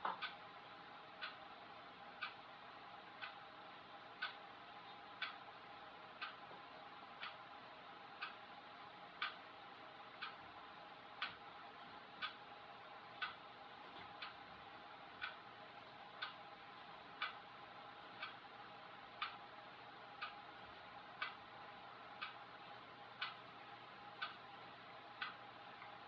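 Even ticking, about one tick a second, over a faint steady hum.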